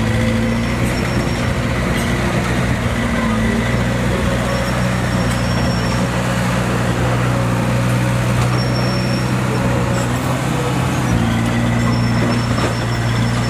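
Heavy diesel engine of earth-moving machinery running steadily at a constant speed.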